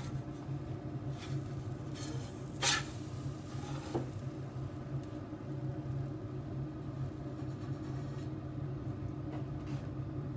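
A steady low mechanical hum, with a brief clatter about two and a half seconds in and a smaller click about a second later.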